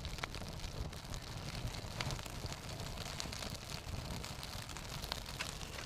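Campfire crackling: scattered sharp pops over a steady low hiss.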